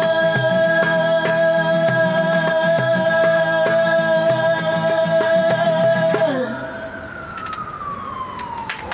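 Stripped-down acoustic song ending: a woman's voice holds one long final note over acoustic guitar and tambourine hits, stopping about six seconds in. After it, a siren sounds, its pitch falling slowly.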